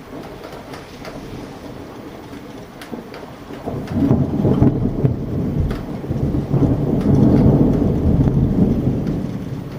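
Thunder rumbling during a summer thunderstorm: a long low rumble swells about four seconds in, holds for several seconds and fades, over scattered raindrops ticking.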